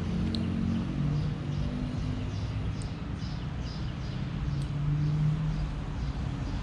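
Outdoor background: a steady low rumble with a small bird chirping repeatedly, a few chirps a second.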